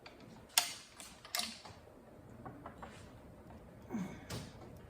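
Steel transmission parts clicking and clinking as the NV4500's 5th gear and synchronizer assembly and shift fork are worked onto the shaft. There are two sharp metal clicks about half a second and a second and a half in, a few lighter ticks later, and another click near the end.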